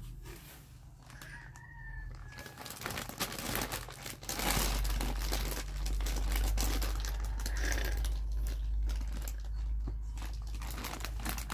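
Clear plastic sheeting crinkling and crackling irregularly as a hand pets a puppy lying on it. A low rumble joins about four and a half seconds in.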